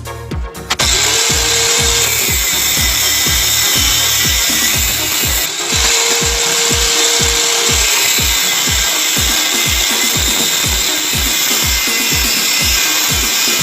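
A power tool runs steadily from about a second in, over background music with a steady beat.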